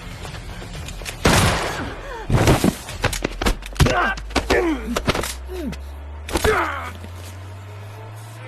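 Film fight sound effects: a run of hard hits and whooshes, with pained grunts and short cries between them, over a low music drone.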